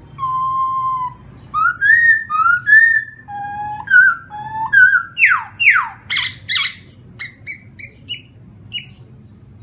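Caged khướu mun laughingthrush singing loud, clear whistles: a long level note, then a run of rising and falling whistled phrases, a few quick downward sweeps, and short clipped notes that stop near the end.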